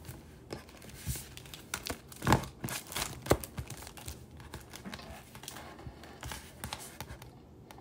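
Paper sheets and a clear plastic sleeve rustling and crinkling as colouring pages are handled and packed, with irregular short rustles and clicks; the loudest crinkles come a little past two seconds and at about three seconds in.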